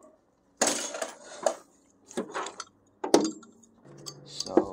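Metal hand tools and parts clinking and knocking, with a short rasping scrape about half a second in and several separate sharp clanks after it, the loudest about three seconds in.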